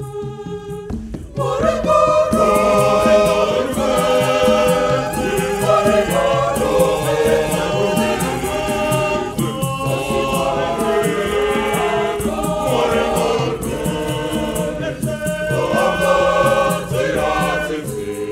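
Choir singing a Shona Catholic hymn. Fuller singing comes in about a second and a half in, over a steady shaker beat.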